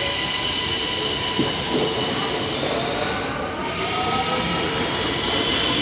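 ÖBB Cityjet electric multiple-unit train moving past along the platform: steady running and wheel noise with a whine of several held tones from its electric drive, and a gently rising whine about halfway through.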